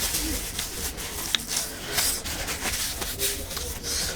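Close-miked eating sounds: wet chewing and smacking in a run of short noisy bursts, with a single sharp click about a second in.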